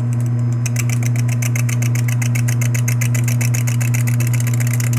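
Lathe motor running with a steady hum. About half a second in, a rapid, even ticking starts as the cutting tool scrapes a cracker spinning in the lathe.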